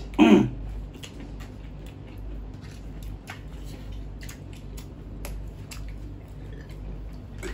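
Close-up eating sounds: chewing, and fingers mixing rice and fried chicken on steel plates, giving many small clicks and squishes. A brief loud vocal sound comes just after the start.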